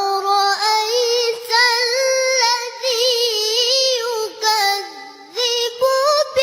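A child's high voice chanting in the melodic style of Quran recitation, with several long, wavering held phrases separated by short breaths.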